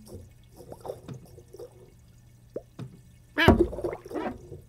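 Cartoon water foley of a cat's paw in a fish tank: small drips and plinks, then a loud splash about three and a half seconds in as the paw plunges into the water.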